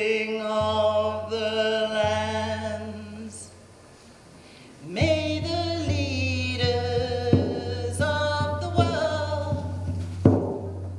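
A woman singing a slow prayer song in long held notes, pausing briefly about four seconds in before the next line begins.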